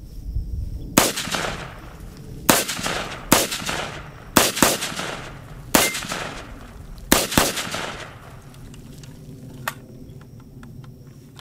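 Daewoo K1A1 5.56 mm semi-automatic rifle firing eight single shots at an uneven pace over about six seconds, two of them fired as quick doubles, each crack trailing off briefly.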